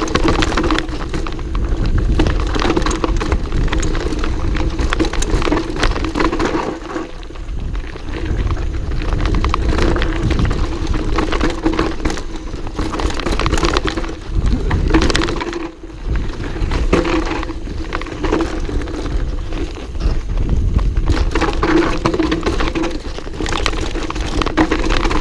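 Mountain bike descending a rough dirt trail, heard through a helmet-mounted GoPro Hero4: a steady rumble of tyres and air with constant rattling clicks and knocks from the bike over roots and stones. The noise drops briefly about two-thirds of the way through.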